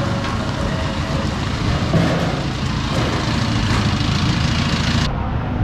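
Rainy city street ambience: a steady hiss of rain mixed with the low rumble of passing and idling traffic engines.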